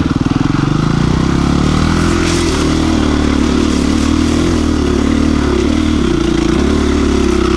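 KTM 350 EXC-F's single-cylinder four-stroke engine running under load as the dirt bike climbs slowly up a loose gravel slope, at fairly steady revs with small rises and falls in pitch.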